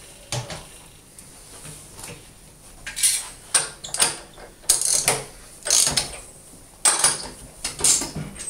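Ratchet wrench being worked back and forth on the screw of a hand-operated press to open it, with sharp metallic ratcheting clicks about twice a second starting about three seconds in.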